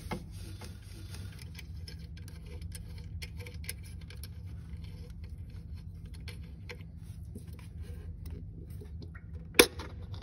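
Light metallic clicks and ticks of hand tools working the timing-belt pulley and water-pump fastenings on a Citroen C4's 1.6 petrol engine, over a steady low hum, with one sharp loud clack near the end.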